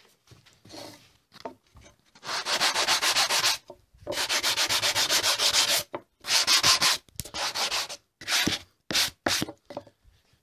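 Sanding wooden cut-out numbers made from reclaimed wood: loud, noisy bursts of a second or two, then shorter, choppier strokes near the end.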